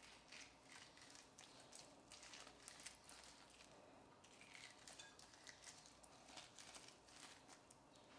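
Faint kitchen food-preparation handling sounds: many soft, irregular small clicks and rustles, several a second.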